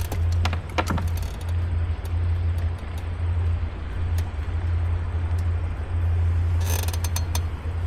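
Fishing reel being cranked, its gears making a steady low whirr that pauses and resumes, with a few sharp clicks about half a second in and again near the end.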